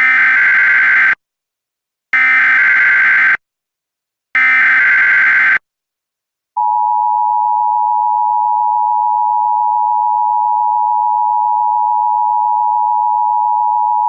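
Emergency Alert System alert tones: three bursts of the screeching SAME digital header, each about a second long with a short gap between, then about six and a half seconds in the steady two-tone EAS attention signal begins and holds.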